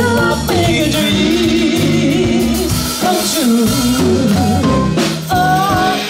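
Live jazz band playing with a singer: long sung notes with a wavering vibrato over bass and drums.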